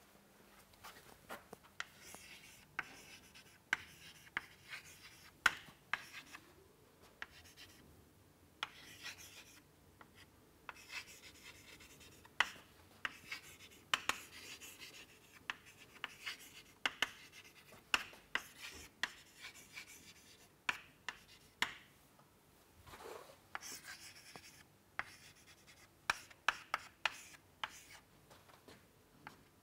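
Chalk writing on a chalkboard: short scratching strokes and frequent sharp taps as words are written out, fairly quiet.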